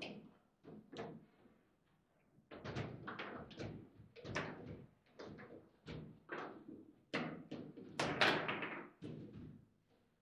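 Table football game in play: the hard plastic players strike the ball and the ball knocks against the table walls, in a fast irregular run of sharp knocks and slams. There is a short lull about a second in, and the loudest cluster comes about eight seconds in.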